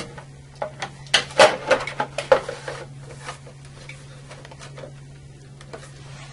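Front cover of an Eaton Series NRX circuit breaker being seated onto the breaker by hand: a quick run of clattering knocks and clicks about a second in, lasting about two seconds, then a few faint ticks.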